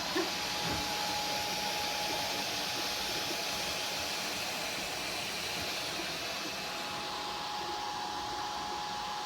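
3D printer running: a steady whir of cooling fans with a thin, steady high whine, and a light knock just after the start.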